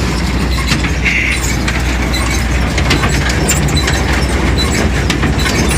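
Tractor engine running with a small square baler working behind it: a steady low drone with constant mechanical clatter and knocks.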